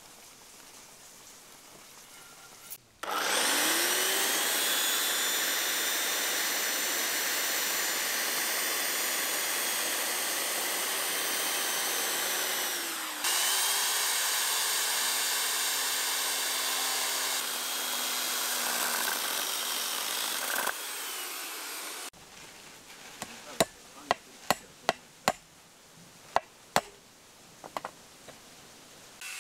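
Corded electric power saw cutting a wooden board: the motor winds up about three seconds in, runs for about ten seconds and winds down, then runs again for about eight seconds. Near the end come about ten sharp knocks, a hammer driving nails into the wood.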